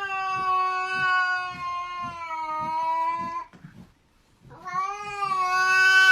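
A cat yowling: two long, drawn-out meows, the second starting about four and a half seconds in after a short pause.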